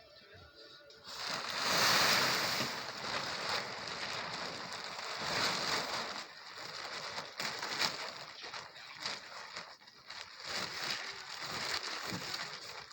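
Wet snow and ice crunching and scraping in irregular strokes, starting about a second in.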